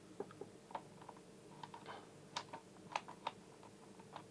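Faint, irregular light clicks and taps from handling a multimeter and its test probes on the TV's circuit board, with a few sharper clicks between about two and three and a half seconds in.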